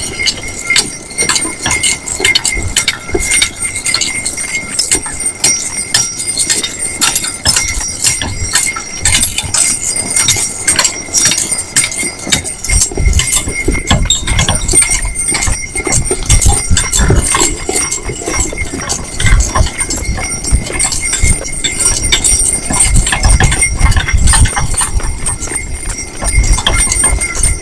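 Hoofbeats of a pair of harnessed ponies on a snow-packed road, with the harness jingling steadily and a low rumble of the vehicle moving under them.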